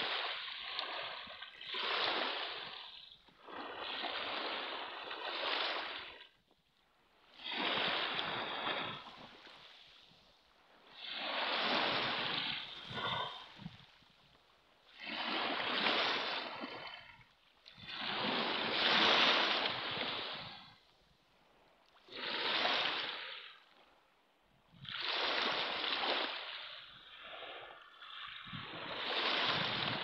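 Small sea waves breaking and washing up a pebble beach: a rushing surge every three to four seconds, about nine in all, with quieter lulls between.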